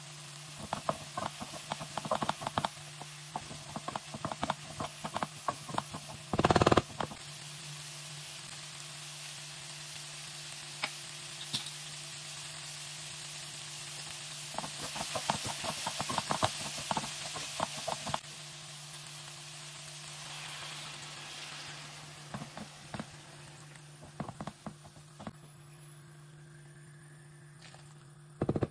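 Vegetables sizzling in a pot as a wooden spoon stirs them, with many quick clicks and scrapes of the spoon against the pot and one louder knock about six seconds in. The sizzling grows stronger for a few seconds midway, then dies down towards the end.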